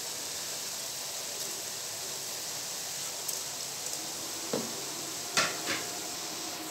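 Chopped onions and green chillies frying in oil in an aluminium kadai: a steady, soft sizzle, with a few light clicks a little after halfway.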